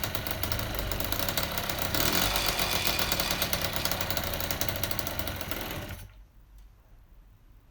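Freshly rebuilt Piaggio moped two-stroke single-cylinder engine running fast and rattly on its first start-up, louder and higher from about two seconds in, then dying away about six seconds in. The engine is not holding its idle, which the mechanic puts down to the intake timing.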